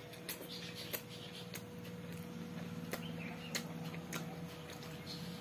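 Close-up chewing and mouth sounds of someone eating a mouthful of rice and curry, with soft sharp clicks and smacks about every half second, over a faint steady hum.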